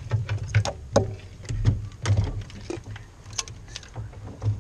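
Irregular clicks, knocks and rustling as the removed wiring harness of a Mercedes-Benz C180 W202's fuel-injection system is handled, with low thumps of handling noise on the phone's microphone.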